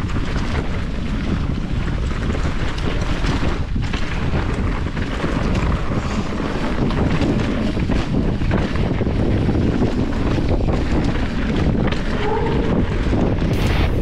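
Wind rushing over an action camera's microphone on a fast mountain-bike descent, with tyre noise and frequent knocks and rattles from the bike, a 2023 Specialized Epic Evo, bouncing over a rocky, leaf-covered trail.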